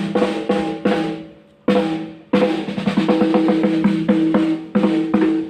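Amplified drum kit playing: a few loud hits with ringing low tones, then from about two seconds in a quick, steady run of strokes like a drum fill.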